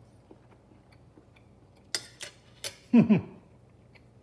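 A metal fork set down on a ceramic plate, clinking a couple of times, then a man's short 'mmm' falling in pitch, the loudest sound.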